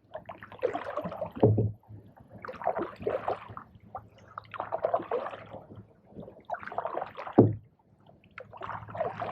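Canoe paddles dipping and pulling through the water in strokes about every two seconds, with splashing and dripping, and two dull knocks of a paddle against the hull.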